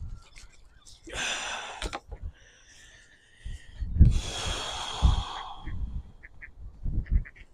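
Hand-handling noise: a cloth towel rustling as wet hands are rubbed dry, with a couple of dull knocks and a few light clicks near the end.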